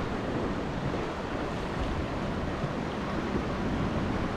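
Surf washing steadily onto the beach, with wind buffeting the microphone.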